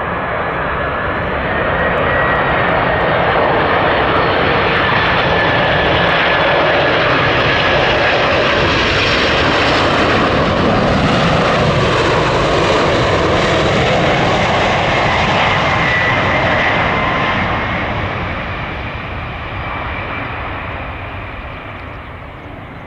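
Boeing 747-400 freighter's four turbofan engines roaring on landing as the jet passes by, building and holding loud for about fifteen seconds with a faint whine over the roar, then fading away over the last few seconds.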